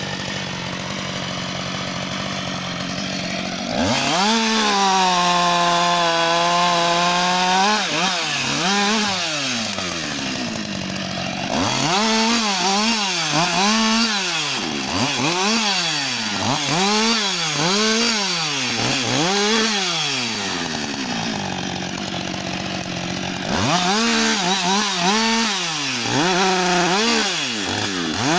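Husqvarna 560 XP two-stroke chainsaw cutting spruce logs. It runs steadily at a lower pitch, goes up to a high, held speed about four seconds in, then is revved up and down again and again, about once a second, as it works through the wood.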